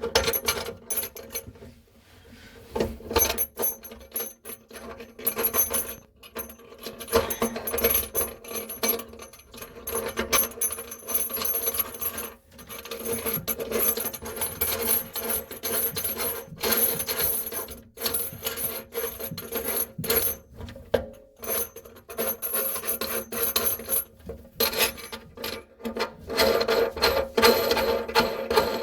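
Kitchen faucet's mounting nut being threaded up the shank by hand from under the sink, with irregular rasping, scraping and small clicks of plastic and metal parts.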